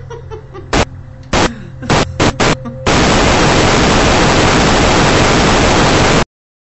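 Static noise: five short loud blasts of static in the first two and a half seconds, then a loud, steady hiss of white-noise static for about three and a half seconds that cuts off suddenly.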